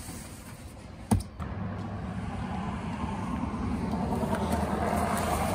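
A sharp thump about a second in, then the steady rumble of a passing road vehicle that grows louder toward the end.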